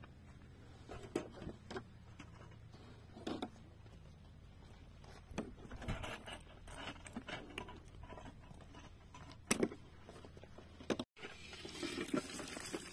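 Scattered light knocks, taps and rustles of things being handled, with one louder double knock about nine and a half seconds in. After a brief dropout near the end, a steadier noisy sound begins.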